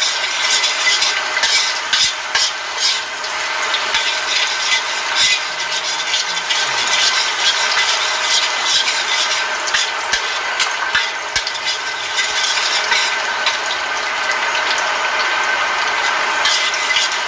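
Minced garlic sizzling in hot oil in a stainless steel wok, being fried until fragrant. A metal spoon stirs it, scraping and clicking against the pan throughout.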